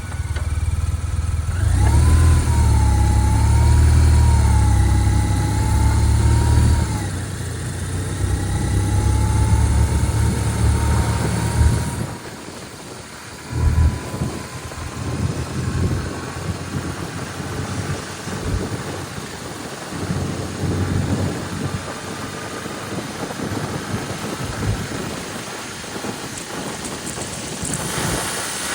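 Heavy wind buffeting on the microphone while riding a 2005 BMW R1200RT motorcycle, with its engine running underneath and a wavering whine over the rumble. The deep buffeting is strongest for the first dozen seconds, then eases to lighter, gustier thumps.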